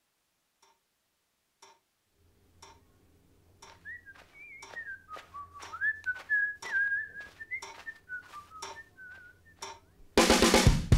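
Ticking about once a second, then a person whistling a slow, wandering tune over a low hum. Near the end a drum kit comes in with a loud beat.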